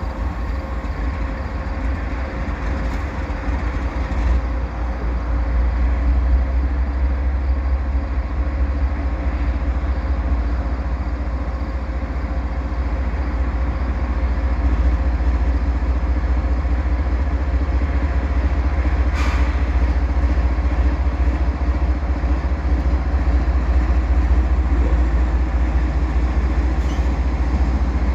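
Diesel locomotives of a departing freight train, a GE ES44 with its V12 GEVO engine in the lead and an F59PH behind it, running under load as they pull slowly past, a deep steady rumble that grows gradually louder.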